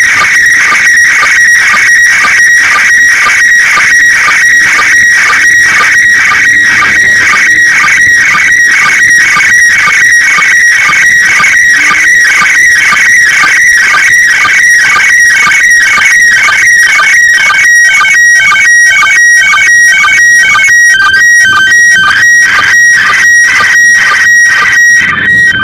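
Slow-scan television (SSTV) image signal from the International Space Station, received on a handheld FM transceiver on 145.800 MHz: a shrill, warbling tone chopped into a rhythm of about two pulses a second, the scan lines of a picture being sent. In the last third the pitches shift and break up as the picture content changes.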